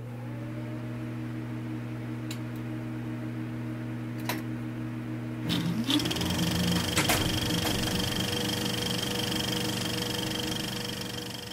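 A steady machine-like hum of low tones, broken by a few sharp clicks. About halfway through a short rising whine sets in, the hum becomes a busier, slightly louder whir, and a steady high whistle joins it.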